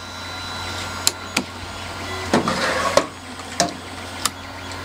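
OO gauge Hornby Terrier model locomotive running slowly while shunting wagons: a steady small-motor hum that swells over the first second, with irregular clicks and clunks of wheels and couplings over track joints and points. 3D printers whir in the background.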